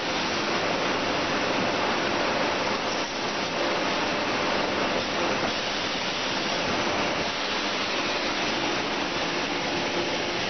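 Steady din of cookware production-line machinery running: a continuous noisy rush with a faint motor hum under it.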